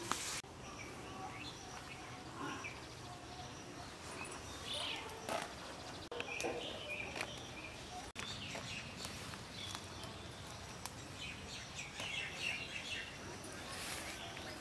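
Outdoor background with birds chirping now and then, and a few short knocks or rustles.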